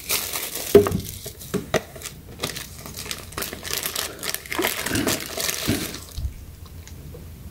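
Tissue paper and clear plastic bags crinkling and rustling as they are handled, with a few light knocks among them; the rustling dies down about six seconds in.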